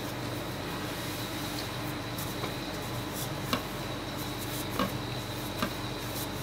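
Wooden rolling pin rolling out a sheet of pastry dough on a mat: soft rubbing with a few light knocks, over a steady hum.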